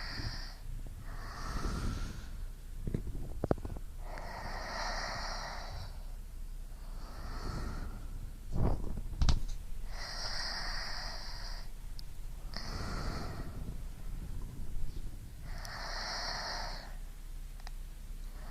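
A person breathing slowly and audibly in and out close to the ears. There are long breaths about every five to six seconds, with shorter, softer ones between. Two brief low thumps come a little before halfway.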